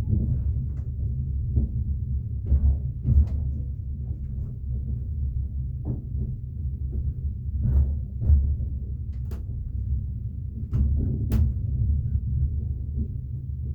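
Train rolling along the track, heard from inside the carriage: a steady low rumble with irregular clacks and knocks from the wheels, several of them in pairs about half a second apart.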